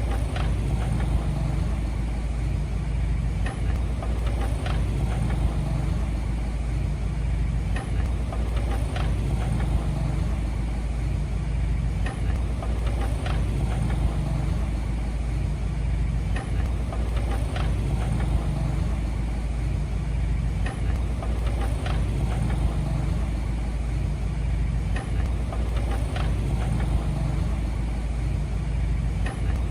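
Diesel engine of a heavy earthmoving machine running steadily, with short knocks every few seconds, often two close together.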